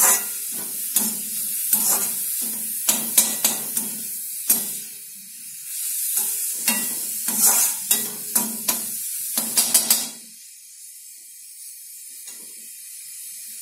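Grated cabbage and carrot sizzling in oil in a metal kadhai, scraped and stirred with a slotted metal spatula in quick strokes. The stirring stops about ten seconds in, leaving a quieter sizzle.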